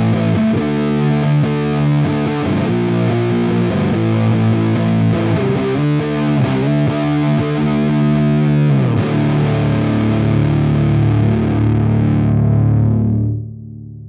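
Electric guitar played through a DIY copy of a Model T JFET amp-emulator pedal, a heavily distorted tone: a riff of changing chords for about nine seconds, then one held chord that rings out, fades and is cut off just before the end.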